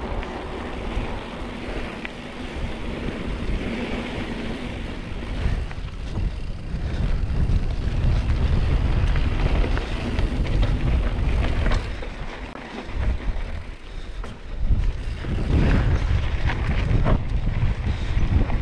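Wind buffeting the microphone on a moving bicycle: a low rumble that gusts up and down and eases off briefly past the middle, with a few knocks near the end.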